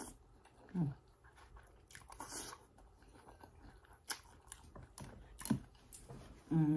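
A person eating pho close to the microphone: scattered chewing and mouth clicks, with a brief low pitched sound about a second in.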